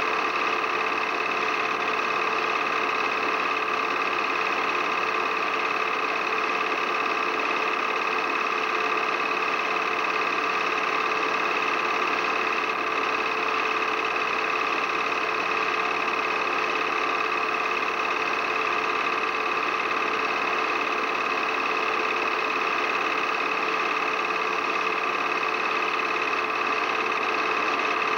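A steady, unchanging mechanical hum and whine with several fixed tones over a hiss.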